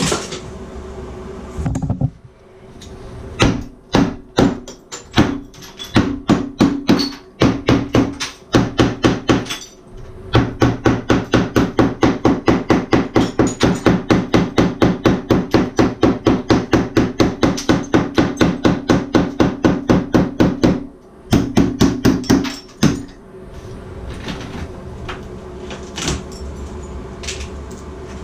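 Hammer blows against a tiled shower wall, knocking out tile: scattered strikes at first, then a steady run of about four blows a second for some ten seconds, then a few more near the end.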